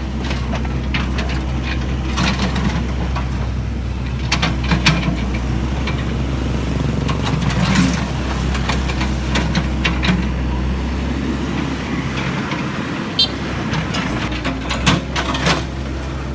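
A heavy vehicle's diesel engine running steadily, with scattered knocks and clanks over it.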